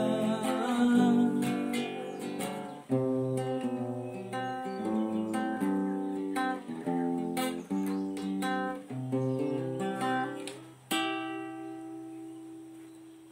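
Acoustic guitars playing the slow closing passage of a song as stepped notes and chords. A final chord is struck about eleven seconds in and left to ring and fade out.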